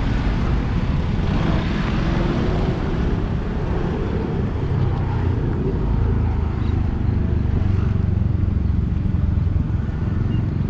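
Steady low rumble of street traffic, motorcycles and cars running past.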